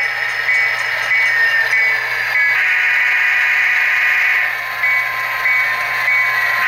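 SoundTraxx Tsunami sound decoder in an HO scale Norfolk Southern GP60 model locomotive playing a diesel bell and horn through its small speaker. The bell rings about every half second, and one long horn blast runs from about two and a half to four and a half seconds in, with another starting near the end.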